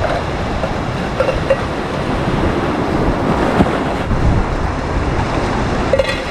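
Sea surf washing on the shore, with wind buffeting the microphone in a steady low rumble.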